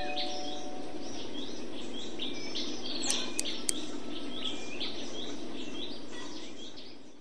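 Birds chirping over a steady outdoor background hiss, with the last of a two-tone doorbell chime dying away in the first second. Three light clicks come about three seconds in, and the whole bed fades out at the end.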